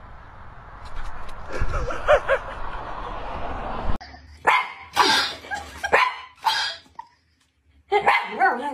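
A dog barking, about five short barks in quick succession in the second half, followed near the end by a wavering, pitched call.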